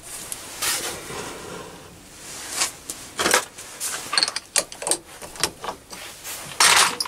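Chuck key turning in a lathe's four-jaw chuck, giving irregular metallic clicks and knocks as the jaws are adjusted and tightened on a workpiece, coming faster in the second half.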